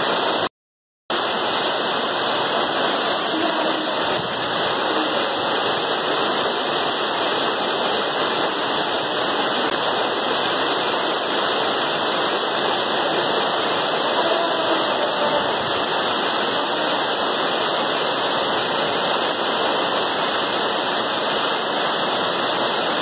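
Waterfall's falling water, a steady, even rush. It cuts out completely for about half a second just after the start.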